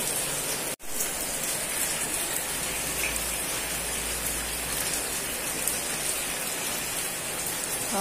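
Steady rain falling on a paved yard and into a swimming pool, an even hiss, with a momentary dropout in the audio about a second in.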